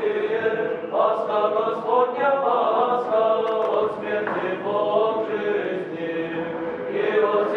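Male choir of monks singing Orthodox liturgical chant, several voices holding sustained notes and moving from pitch to pitch without a break.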